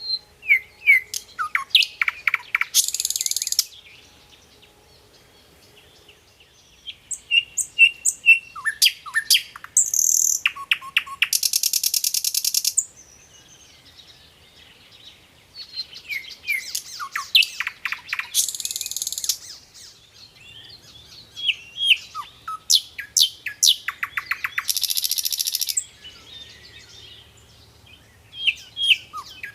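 Common nightingale singing in separate loud phrases with short pauses between them. Each phrase mixes whistled and sliding notes, fast rattling trills and harsh buzzy notes.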